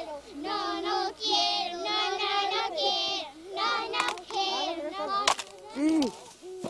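A high-pitched voice singing long, wavering notes, with a sharp crack a little after five seconds in.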